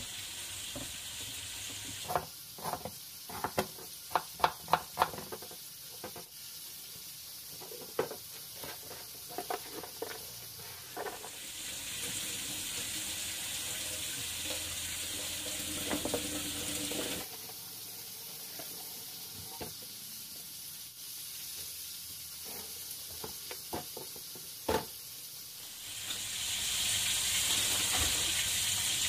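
A knife chopping red onion on a plastic cutting board: a quick, uneven run of sharp taps. Then the kitchen tap runs while hands are rinsed under it, and it runs again, louder, near the end.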